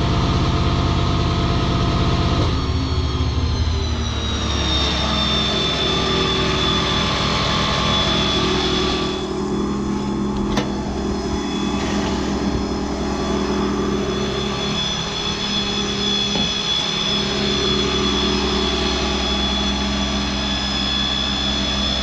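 PTO-driven air compressor on a Ford F550 Power Stroke diesel service truck running under load, with a steady high whine over the engine. About two and a half seconds in the pitch shifts and glides before settling steady again.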